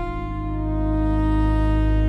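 Background music: sustained low chords held steady, changing to a new chord at the start.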